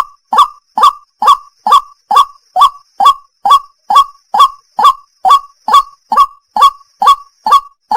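White-breasted waterhen calling: a loud, monotonous series of short upslurred 'kwak' notes, repeated evenly about twice a second without a break.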